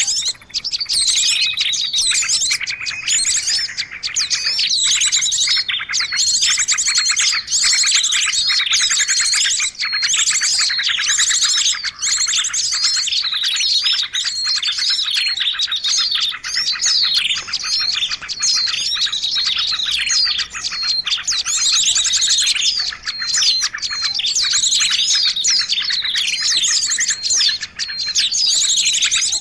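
Dense chorus of many small songbirds chirping and trilling over one another without a break: a recorded bird-lure (pikat) call track used to draw small birds in.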